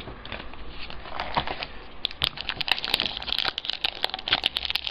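Trading-card pack wrapper crinkling and crackling as it is handled and torn open, in a quick run of sharp crackles that grows busier about two seconds in.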